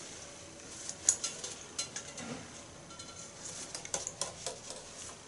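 Thin wire being handled and twisted by hand over a ceramic washbasin: faint, scattered light clicks and ticks.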